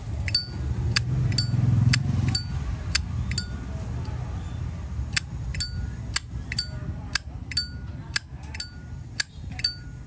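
Zippo lighter lid being flicked open and snapped shut over and over, a sharp metallic clink with a brief bright ring each time, about two a second.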